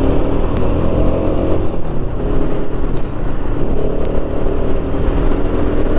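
Bajaj Pulsar RS200's single-cylinder engine running under way, over a steady rush of wind on the microphone. The engine note eases off about two seconds in and comes back about four seconds in. There is a brief high chirp about three seconds in.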